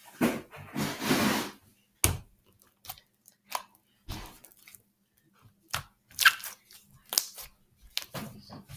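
Scattered short crackles, clicks and taps of small objects being handled, with quiet gaps between them.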